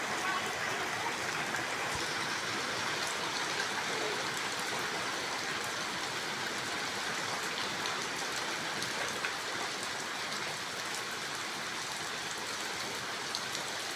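Steady rain falling, an even hiss of water without a break.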